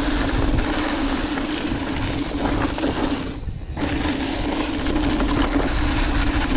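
Mountain bike rolling fast down a dirt and gravel trail: rushing wind on the camera and tyre noise, with a steady buzz that drops out briefly about three and a half seconds in.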